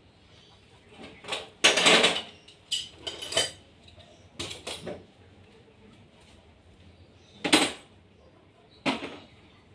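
Metal objects clattering and clanking in five or six separate bursts, the loudest about two seconds in and another sharp clank about seven and a half seconds in.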